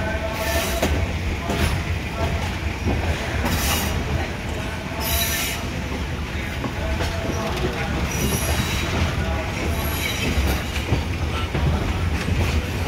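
Passenger train running along the rails, heard from aboard: a steady low rumble with several short, high-pitched wheel squeals and clicks as it runs through the station yard's points.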